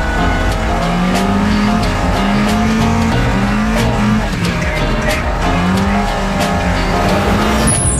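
Toyota AE86 drift cars running hard with tyres squealing, mixed with music that has a steady beat and a stepping bass line. Near the end the car sound drops away and the music carries on.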